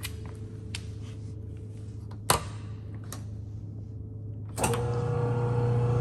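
A few sharp clicks over a low background hum, then, about four and a half seconds in, the shell drive motor of an 8-quart pharmaceutical shell blender starts with a click and runs with a steady mechanical hum.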